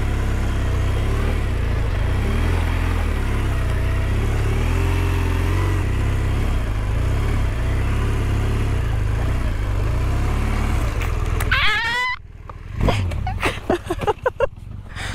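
BMW R 1200 police motorcycle's boxer-twin engine running at walking pace with the rider working the clutch, then cutting out abruptly about 12 s in as the bike tips over, followed by a few sharp knocks.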